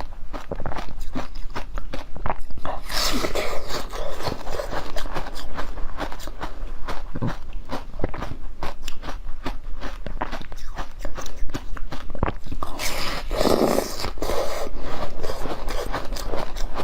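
Close-miked eating: a stream of crunching, chewing and mouth clicks as food is bitten and chewed, with two louder, longer crunches about three seconds in and again near the thirteen-second mark.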